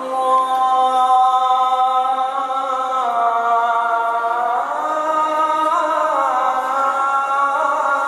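Azan, the Islamic call to prayer: a single unaccompanied voice holding long, ornamented notes, the pitch sliding up and down between held tones.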